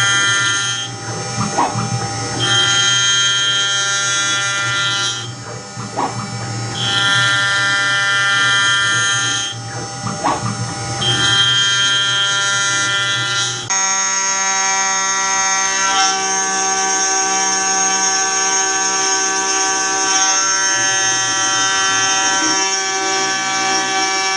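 CNC milling spindle cutting aluminium with a small ballnose cutter: a loud, steady high-pitched whine with many overtones, dipping and coming back about every four seconds as the cutter sweeps back and forth across the pocket. A little over halfway through, it changes abruptly to a different steady whine.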